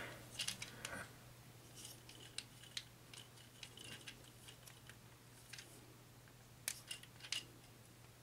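Faint, scattered clicks and light rattles of a Studio Series Leadfoot Transformers action figure's plastic parts being handled and folded during transformation, with three sharper clicks late on.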